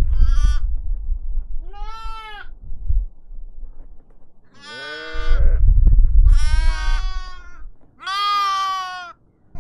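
Sheep or goats bleating: about five calls, the later ones longer, each about a second, with a low rumble beneath some of them.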